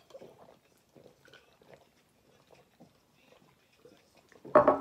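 Faint swallowing and small mouth sounds of people gulping down drinks, then a sharp knock near the end.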